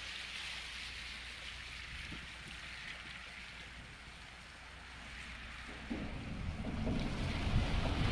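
Small saltwater waves lapping and splashing at the shore's edge, with a low, uneven rumble of wind on the microphone growing louder from about six seconds in.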